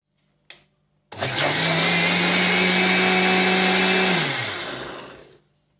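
Mixer-grinder motor churning milk cream and ice water in its steel jar to make butter: after a light click it spins up about a second in, runs steadily for about three seconds, then is switched off and winds down with a falling hum.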